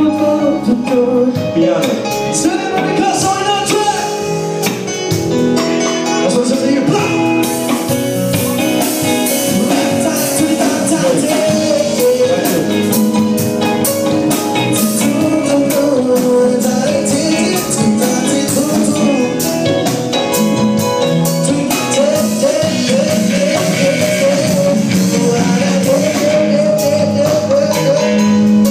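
A song with a singer over guitar and percussion that keeps a steady beat.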